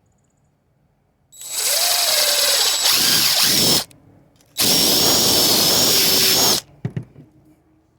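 Power drill spinning a reamer in the end of a copper refrigerant fitting, run in two bursts of about two seconds each. A short knock follows near the end.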